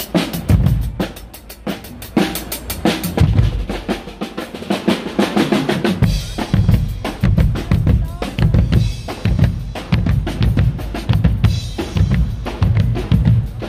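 Guggenmusik drum section, with bass drums, snare drums and cymbals, playing a loud, fast beat; after about six seconds it settles into a steadier pulse of heavy bass-drum strikes.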